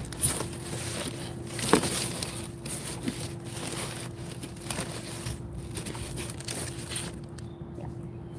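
Cardboard boxes rustling and scraping as someone digs through a cardboard recycling dumpster, busiest in the first few seconds with one louder knock, then quieter shuffling.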